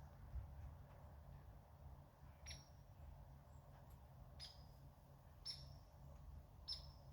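Faint short, high chirps or squeaks from a small animal, four of them about a second apart starting a couple of seconds in, over a low steady hum.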